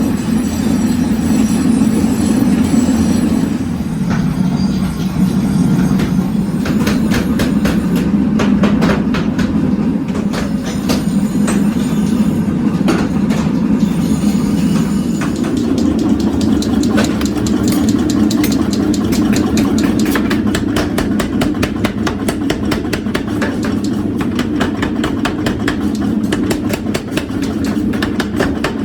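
Factory machinery running with a steady low drone, joined about seven seconds in by a rapid run of sharp metallic clicks and knocks that grows denser later on.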